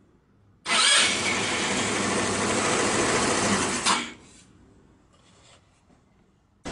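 Vintage Soviet scooter, switched on from a button on its handlebar, making a loud, harsh whirring buzz. The sound starts abruptly about a second in, holds steady for about three seconds, then cuts off; a few faint clicks follow.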